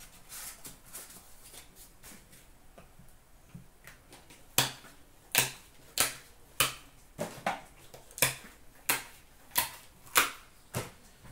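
Soft rustling as a hockey card box is handled and opened, then a run of about eleven sharp clicks, roughly one every two-thirds of a second, from about four and a half seconds in.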